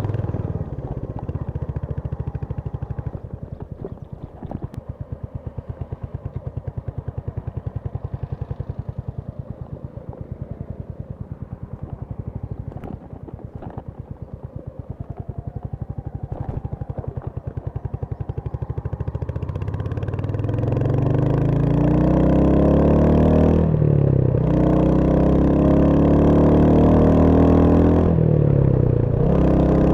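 Royal Enfield Hunter 350's single-cylinder engine pulsing at low revs, then accelerating from about 20 seconds in, its pitch rising, with two brief drops near the end as gears are shifted.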